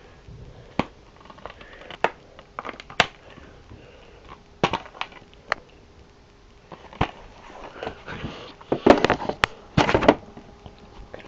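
Scattered clicks and knocks with a faint steady hum underneath, and a cluster of louder knocks near the end.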